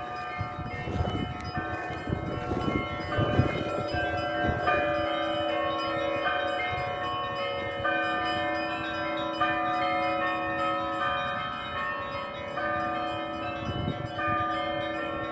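Russian Orthodox church bells being rung: several bells of different pitches struck one after another in a running pattern, each stroke ringing on and overlapping the next.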